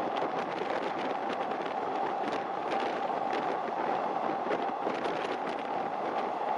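Long-distance train running at speed on the viaduct: a steady rushing run with many quick clicks from wheels on rail.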